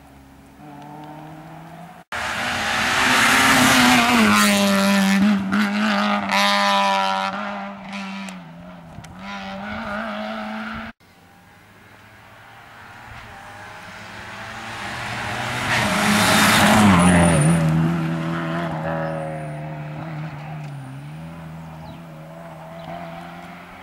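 Rally cars racing past on a tarmac stage one after another, engines revving hard with pitch rising and dropping through gear changes as each approaches, goes by and fades. Two passes, each starting suddenly where the sound is cut.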